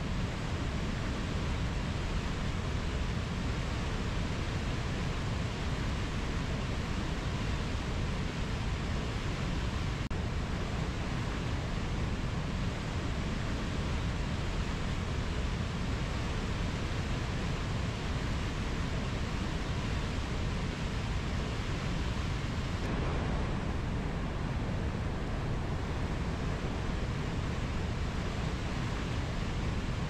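Mountain river flowing over low rapids: a steady rushing of water, heaviest in the low end, with a slight shift in tone about two-thirds of the way through.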